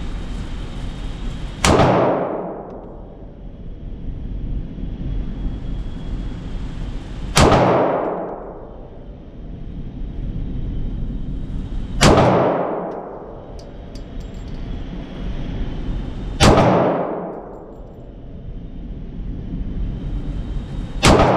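Five single pistol shots, fired slowly about four to five seconds apart, each a sharp crack with a long echo in an indoor concrete shooting range, over a steady low background noise.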